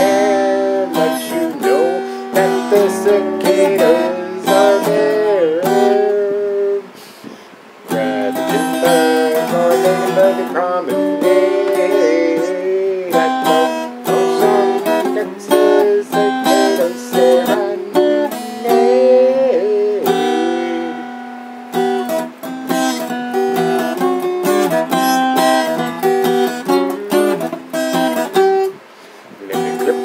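Steel-string acoustic guitar strummed in a steady rhythm, accompanying a song; the playing drops away briefly about seven seconds in.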